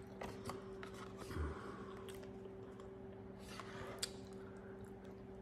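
Faint chewing of a mouthful of steak and cheese sub, with a few light clicks and rustles from a cardboard takeout box being handled, over a steady low hum.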